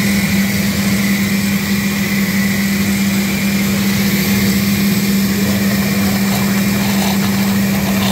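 Oster countertop blender running steadily, grinding soaked guajillo chiles with garlic and tomato into a thick red sauce: an even motor whir with a steady low hum underneath.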